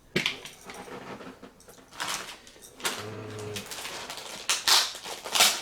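Hard plastic toy parts being handled, clicking and clattering against each other and the table in irregular knocks, loudest near the end.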